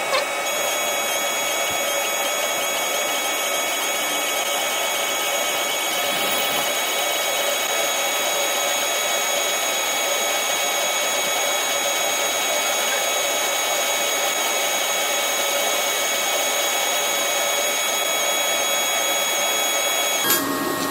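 ComMarker B4 fiber laser engraver rastering a photo onto a black metal card: the galvo scanner gives a steady buzzing whine with several high tones held level. The sound cuts off suddenly near the end, as the job finishes.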